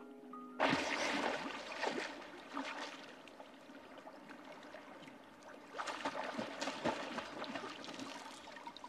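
Water splashing and sloshing around a person swimming at the surface. It starts suddenly about half a second in, dies down in the middle and picks up again around six seconds in.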